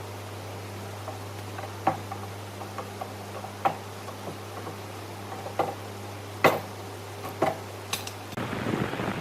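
Scattered light knocks and taps at irregular intervals over a steady low hum. Shortly before the end the hum stops and a rushing noise takes over.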